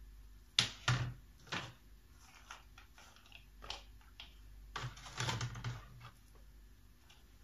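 Hands handling mung bean sprouts and a plastic container on a countertop: a series of light clicks, knocks and rustles, loudest about a second in and again around five seconds in.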